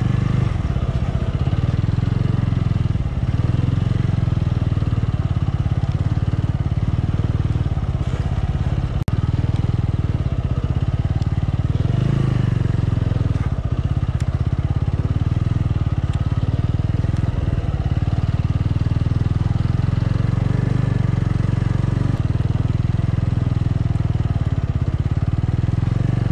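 Single-cylinder motorcycle engine running steadily while the bike is ridden slowly over rough ground, with no sharp revving.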